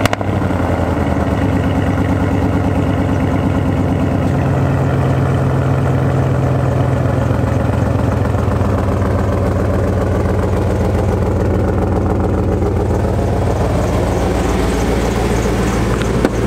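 Dodge Ram pickup's 360 (5.9 L) Magnum gasoline V8 idling steadily just after start-up, heard at the tailpipe from behind the truck.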